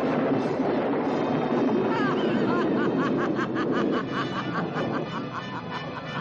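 A burst of rushing noise, then a woman's cackling villain laugh: a quick run of short "ha"s, over dramatic orchestral music.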